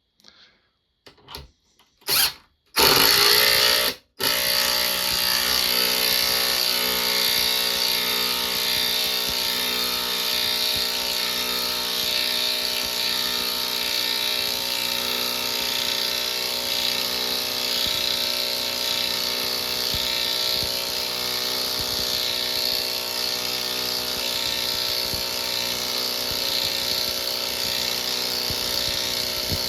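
Hercules 12-volt 1/4-inch cordless impact wrench driving a lag bolt into wood with no pilot hole. A short trigger pull about two seconds in, then it runs continuously with a steady whine, with a brief stop about four seconds in. It sinks the bolt slowly.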